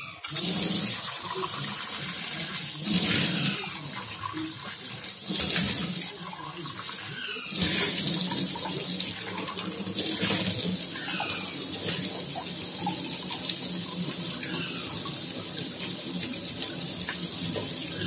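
Kitchen taps running full into a stainless-steel sink: a steady splashing hiss of water on steel that swells louder several times.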